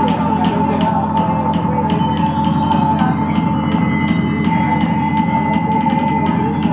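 Psytrance played loud over a club sound system, with a steady driving beat and evenly repeating hi-hat ticks.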